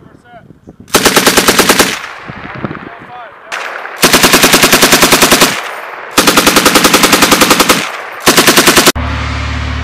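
M240B machine guns firing four bursts of fully automatic fire, about ten rounds a second, the guns fired in pairs as 'talking guns' that take turns with bursts. Near the end the firing cuts off and a steady low hum takes over.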